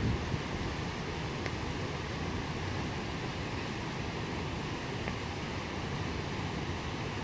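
Swollen floodwater rushing steadily through churning white water, a constant noise with no let-up.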